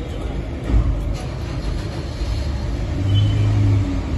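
Low, steady rumble of road traffic and vehicle engines, with a thud about three-quarters of a second in and a low drone near the end lasting just under a second.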